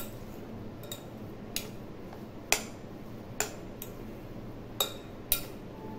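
Metal fork clicking against a glass bowl while mashing boiled potatoes: about eight sharp, irregular taps.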